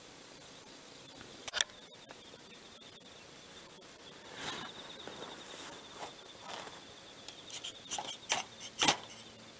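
A fire starter struck several times in quick succession to light a tinder bundle: short, sharp scraping strikes near the end, the last one the loudest. One sharp click comes about one and a half seconds in.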